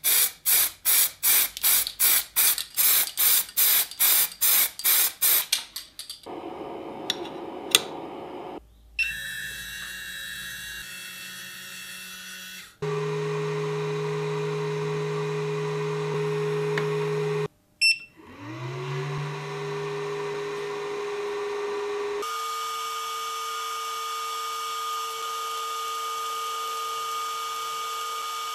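A run of quick scraping strokes, about two a second, for the first six seconds. Then several short machine runs, one winding up in pitch about eighteen seconds in, and a LaserPecker laser engraver running with a steady hum and a high whine during the engraving.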